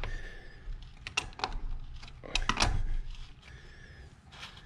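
A few sharp clicks and light knocks of an oil filter wrench and a spin-on oil filter as the freshly loosened filter is worked off, with a small cluster of clicks about two and a half seconds in.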